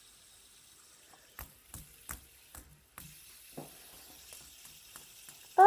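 A few light clicks and taps over a faint steady hiss, clustered in the middle, then a child's short shout of "Oi!" right at the end.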